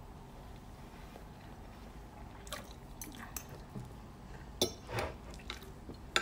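Metal fork and spoon clicking and scraping against a plate of rice while eating: a handful of light, separate clicks begin about halfway through, the sharpest near the end.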